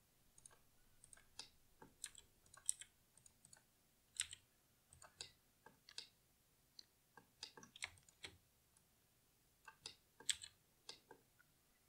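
Faint, scattered clicks of a computer keyboard and mouse, irregular and spread through the whole stretch.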